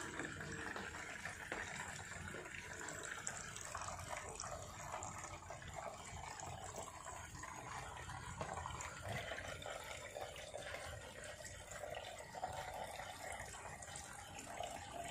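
Water trickling and splashing steadily as it circulates through the PVC channels of an NFT hydroponic system.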